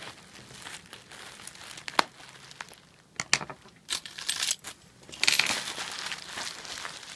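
Plastic bubble wrap crinkling and rustling as it is handled and unwrapped from around a snow globe, with a few sharp clicks and clinks, the loudest about two seconds in; the rustling gets denser and louder a little past five seconds.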